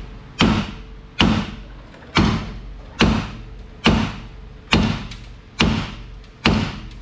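Hammer blows on steel, evenly spaced a little under one a second, about eight in all, each ringing briefly. They are knocking the 2000 Ford Contour's stuck rear strut loose from its knuckle.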